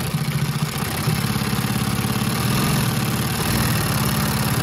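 Consew 339RB-4 two-needle walking foot industrial sewing machine stitching through layered heavy fabric at high speed, running with a fast, even mechanical rhythm that steps up a little about a second in.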